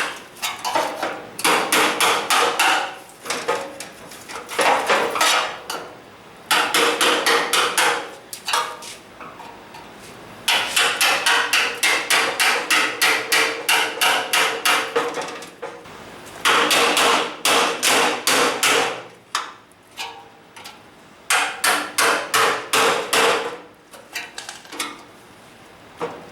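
Hammer blows on sheet-metal car body panels, in runs of quick strikes (about five a second) separated by short pauses.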